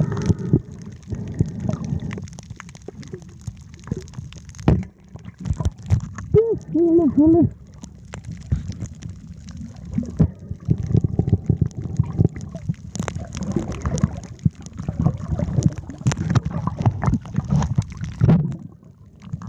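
Underwater sound picked up by a submerged camera: muffled water sloshing and bubbling with scattered clicks and crackles. About six seconds in there is a brief muffled voice-like sound.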